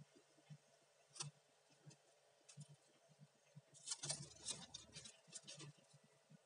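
Faint crackling and snapping of dry bamboo leaves and twigs being pulled aside by hand, scattered at first, then a denser run of crackles about four seconds in.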